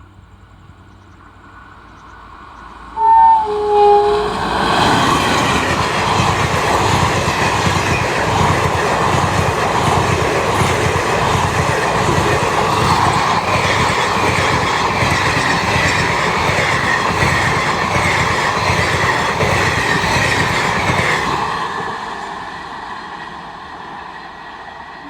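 A passenger train's horn gives two short blasts, and then the train passes close by at speed. Its wheels clatter rhythmically over the rail joints for about sixteen seconds before the sound fades away.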